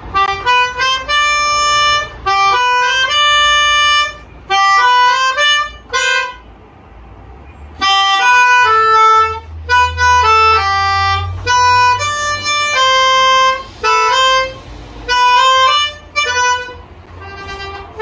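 Melodica (keyboard harmonica) played, a simple single-note melody in short phrases with a break about six seconds in.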